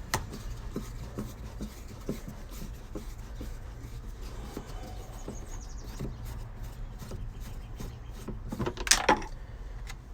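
Scattered faint clicks and knocks of car interior trim and parts being handled during disassembly, over a steady low hum, with a louder clatter about nine seconds in.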